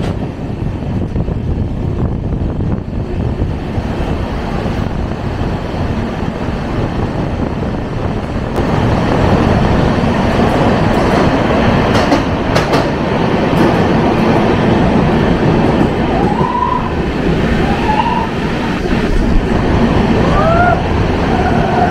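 Passenger train running on the rails, a steady rumble and rattle of wheels and coaches that grows louder about eight seconds in as the train enters a long tunnel. A few brief squeals come near the end.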